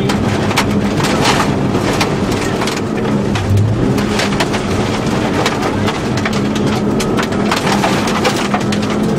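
Rally car's engine running hard, heard inside the cabin, with gravel and stones striking and rattling against the car's underbody in a stream of sharp clicks as it drives fast on a loose dirt road.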